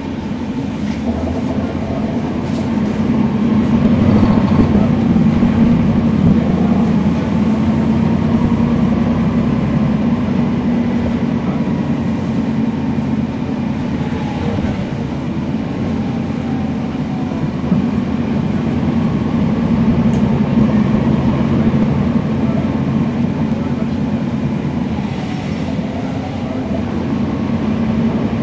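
NABI 40-SFW transit bus's Cummins ISL9 inline-six diesel engine and ZF Ecolife automatic transmission running under way, a steady heavy drone that grows louder about four seconds in, with a faint whine gliding up and down.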